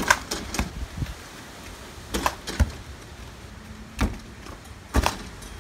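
A basketball striking the backboard and rim and bouncing, heard as a string of separate sharp thuds.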